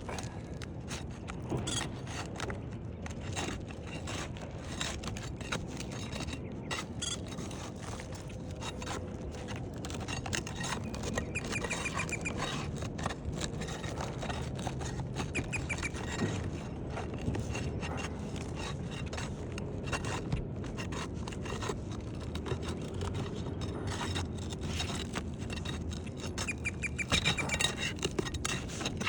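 An asphalt roof shingle being pried loose and its staples pulled out: irregular scraping and clicking, with a few short squeaks.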